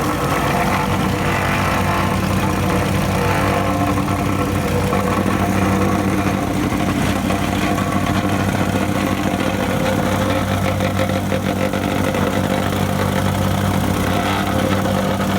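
Vibratory plate compactor running steadily as it makes the final compaction pass over freshly laid asphalt.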